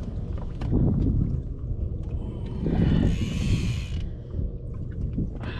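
A strip of cloth being cut from a larger piece with a knife: one rasping tear lasting about a second, near the middle, over a steady low rumble.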